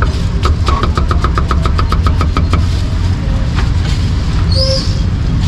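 A knife chopping grilled meat on a chopping board in a fast even run of strikes, about ten a second, for about two seconds, then a few single chops. Under it is a steady low rumble of street traffic and engines, and a brief high squeal about four and a half seconds in.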